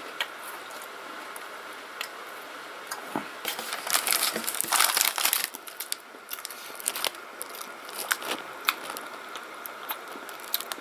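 Crinkling and crunching close to the microphone as a small animal-shaped wheat cracker is taken from its packet and chewed: scattered light clicks, with a denser spell of crackle about four to five and a half seconds in.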